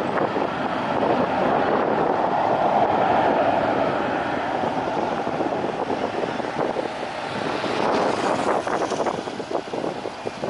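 Aircraft engine noise passing by, swelling over the first few seconds and then fading, with wind buffeting the microphone near the end.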